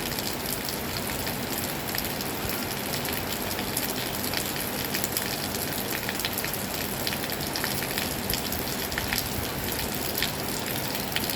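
Heavy rain falling steadily on surfaces, with frequent sharp drop hits ticking through the even hiss.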